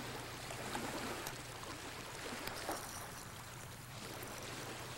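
Small lake waves lapping and washing in the shallows as a soft, steady wash of water, with a low steady hum underneath.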